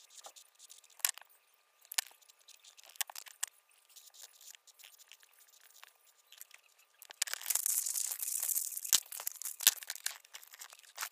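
Felt-tip markers scratching and tapping on paper in short strokes, with a sharp click about once a second in the first few seconds. From about seven seconds in comes a dense scratchy paper rustle lasting two seconds or so, then two sharp knocks.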